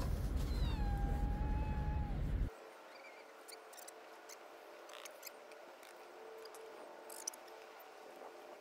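A stray cat gives one long meow that drops in pitch and then holds steady, over a loud low rumble that cuts off suddenly about two and a half seconds in; after that only faint background with a few small clicks.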